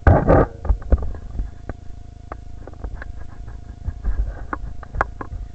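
Handling noise from a camera mounted on a toy foam-dart blaster as it is carried around: scattered clicks, knocks and rustling, with a loud rush of noise in the first half-second.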